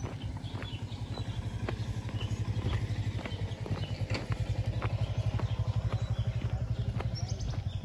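Motorcycle engine idling with a steady low putter that grows louder in the middle, with scattered crunches of footsteps on a gravel dirt road.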